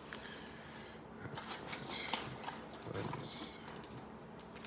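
Trading card packs and box packing being taken out by hand: scattered light rustling, crinkling and small taps.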